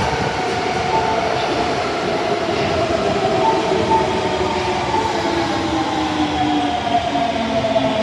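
Osaka Metro Tanimachi Line subway train running, its motor whine falling steadily in pitch as it slows, over rumbling wheel and track noise.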